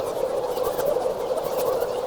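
Synthesizer sound effect meant to mimic bugs buzzing inside an ear: a steady, dense, crackling buzz centred in the middle of the range, with faint scattered clicks above it.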